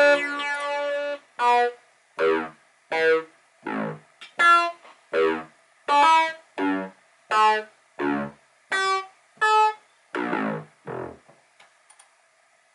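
Software synthesizer preset from Steinberg's HALion 3 Hypnotic Dance library, played from a MIDI keyboard: a held chord that stops about a second in, then about fourteen short, separate notes played one at a time, roughly one every 0.7 seconds, the last fading out a little before the end.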